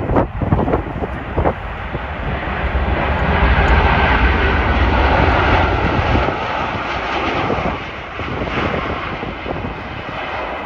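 Jet airliner passing by: its engine noise swells to a peak with a deep rumble, then drops away and fades. Wind buffets the microphone in the first second or so.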